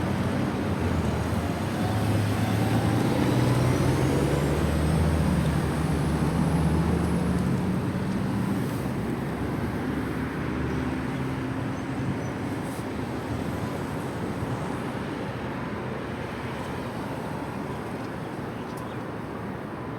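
Road traffic passing close by: the low engine tones of a large motor vehicle, loudest in the first half and rising slightly in pitch, then fading away, over steady traffic and wind noise.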